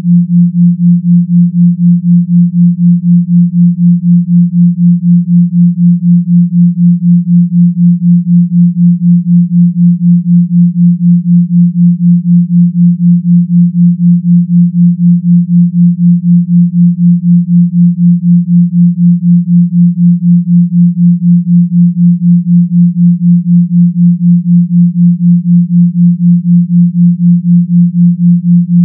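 Pure sine tones at 172 Hz in the left channel and 176 Hz in the right, a binaural beat set 4 Hz apart for the theta range. Heard together they make one low steady tone around 174 Hz that pulses about four times a second.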